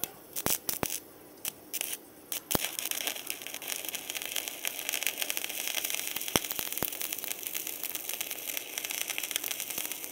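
Stick (MMA) welding arc from an ARC200 inverter welder burning a 4 mm electrode at about 160 amps: a few sharp pops as the electrode is struck in the first couple of seconds, then a steady crackle as the arc burns.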